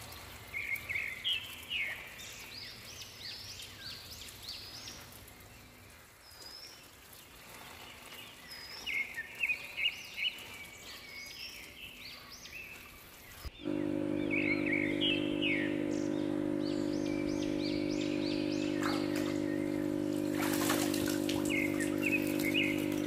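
Wild birds chirping and calling repeatedly in short bursts of hooked, whistled notes. About halfway through, a steady mechanical hum with several low tones starts abruptly and continues under the bird calls, with a brief rush of noise near the end.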